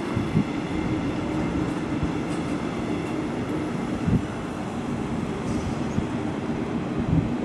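Electric passenger trains running along a brick-arched railway viaduct: a double-deck regional train pulling away while an S-Bahn train rolls past. A steady rumble and hum, with a few short sharp thumps.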